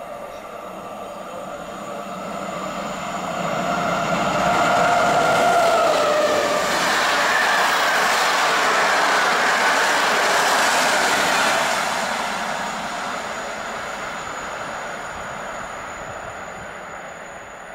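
EP09 electric locomotive hauling an InterCity express through a station at speed without stopping. The locomotive's whine builds, then drops in pitch about six seconds in as it passes. The rushing wheel-and-air noise of the coaches follows and fades away over the last several seconds.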